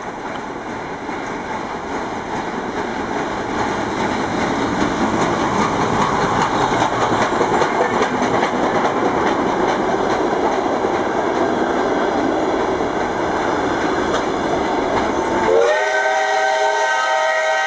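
L-class steam locomotive and its train passing close by, a loud, steady rumble and clatter of wheels on rail that builds over the first few seconds. Near the end the rumble drops away and the locomotive's steam whistle sounds, sliding up in pitch as it opens and then holding a steady, multi-toned note.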